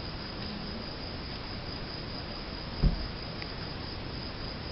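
A steady high insect trill, with a single dull low thump just under three seconds in.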